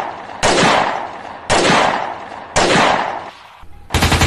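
Gunfire: three loud single shots about a second apart, each dying away, then a rapid burst of automatic fire starting near the end.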